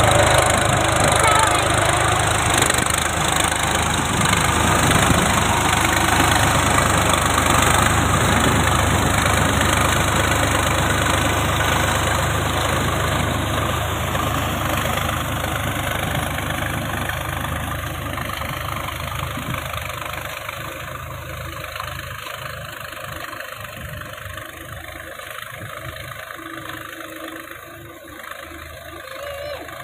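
Tractor diesel engine running under load while a rear-mounted rotavator churns wet paddy mud, getting steadily fainter over the second half as the tractor moves away.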